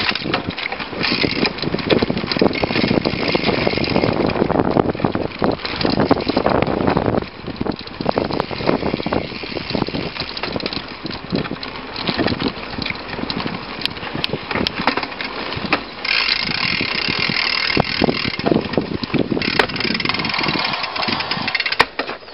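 Mountain bike riding over a dirt forest trail, picked up by a camera mounted on the bike's front fork: steady tyre rumble on the ground with frequent knocks and rattles from the bike, and stretches of hissing wind or tyre noise.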